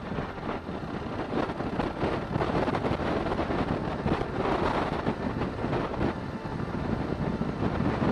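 Wind rushing over the microphone of a moving motorcycle, with the bike running underneath. It gets louder over the first couple of seconds and then holds steady.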